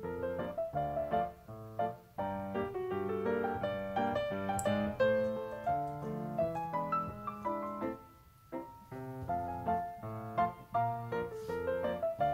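Background piano music: a melody of single notes over chords.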